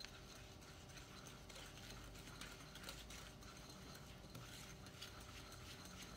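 Faint, irregular ticking and scraping of a wire hand whisk against a glass mixing bowl as softened butter and icing sugar are stirred together.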